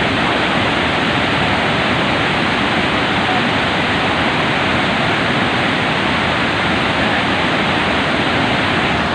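Vazhachal waterfall, water rushing steadily and loudly.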